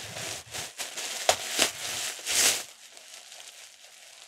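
Rustling and crinkling of white paper wrapping as hands pull it open around a bottle, a quick run of rustles with a few sharper crackles that stops about two and a half seconds in.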